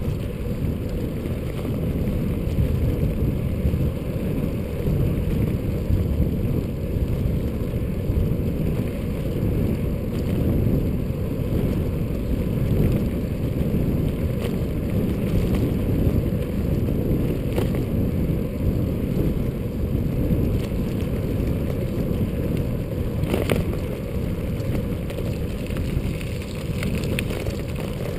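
Steady low rush of wind on a GoPro's microphone as a bicycle rolls fast along an asphalt road, with tyre noise mixed in. One brief click comes late on.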